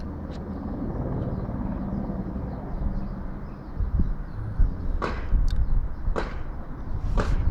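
Steady low rumble of a small helicopter circling overhead, mixed with car engines revving. Three short, sharp sounds about five, six and seven seconds in.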